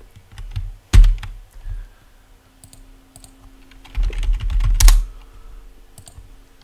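Computer keyboard keystrokes: a few separate clicks near the start, then a quick run of typing about four seconds in, with a faint steady hum in between.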